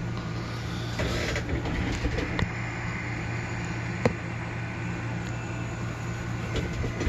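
Small parts of a padlock core being handled, with light rustling, a few small sharp clicks (one stands out about four seconds in) and a louder knock at the very end. A steady low hum runs underneath.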